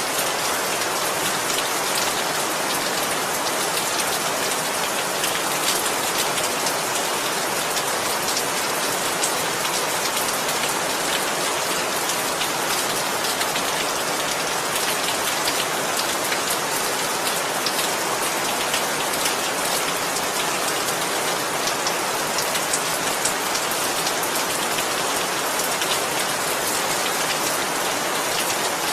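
Steady heavy rain falling on a surface, a dense even hiss with scattered individual drop ticks.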